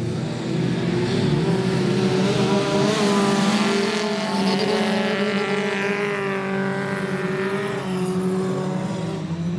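Racing car engines at full throttle on a dirt track, one car passing close by, loudest around three seconds in, its engine note then falling in pitch as it pulls away, with other cars running behind.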